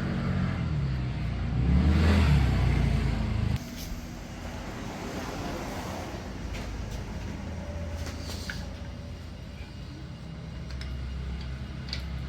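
A motor vehicle engine running, rising in pitch about two seconds in, then cutting off abruptly; after that, quieter workshop sounds with a few light clicks.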